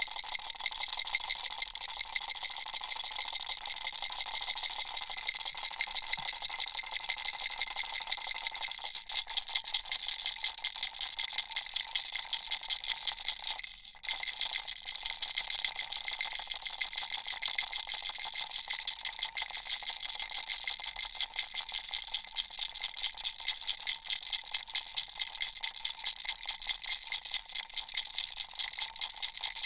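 Baby rattle shaken fast and steadily, beads rattling in quick even strokes over a faint steady ringing tone. It breaks off for an instant about halfway through, then goes on.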